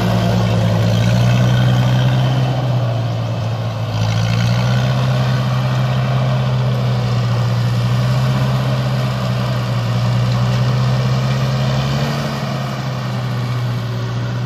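Vehicle engine running steadily, heard up close. Its pitch dips briefly about three to four seconds in and changes again near the end, as the engine speed eases off and picks up.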